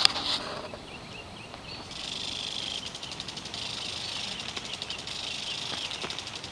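A sharp knock right at the start. About two seconds in, a garden water sprinkler comes on, triggered by a motion detector through a salvaged washing-machine solenoid valve, and runs as a steady high spray hiss with fast fine ticking.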